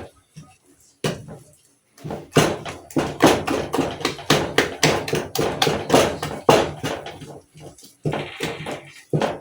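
Repeated thuds and knocks, several a second, from mashing mukimo in a cooking pot. They start about two seconds in.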